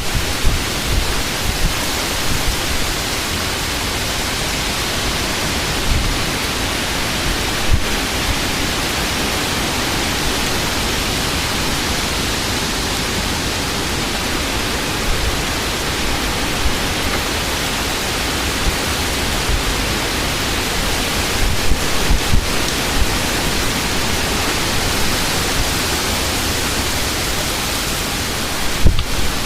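Heavy rain pouring in a severe thunderstorm, a steady dense hiss, with gusts of wind buffeting the microphone at times, more so near the end.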